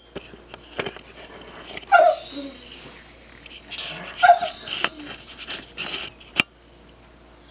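A dog whining, with two louder short calls that drop in pitch, about two seconds in and just past the middle. A sharp click comes near the end.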